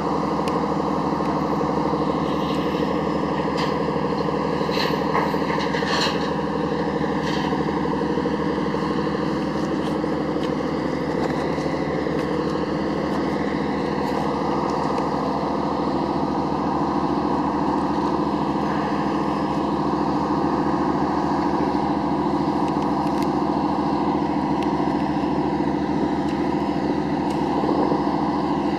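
Diesel engines of a LARC LX amphibious cargo vessel running steadily, with a few short sharp clicks about five or six seconds in.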